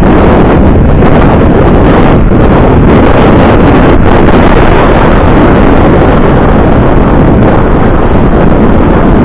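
Loud, steady wind buffeting on an action camera's microphone as an e-bike rides at speed along a gravel trail.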